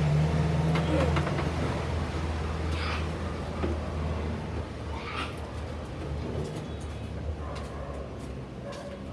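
Steady low mechanical hum of an engine or motor, louder for the first second and a half and then easing off a little.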